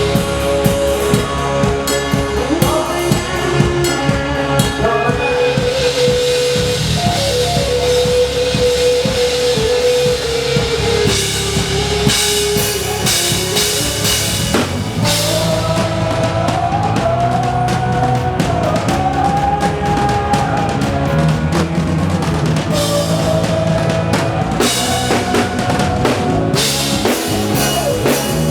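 A live band playing with a drum kit: steady drums and bass under a smooth, gliding lead melody. Picked up by the camera's own microphone.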